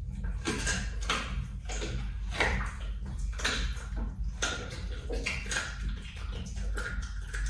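Leopard chewing and licking raw meat: irregular wet smacking and clicking sounds, two or three a second, over a steady low hum.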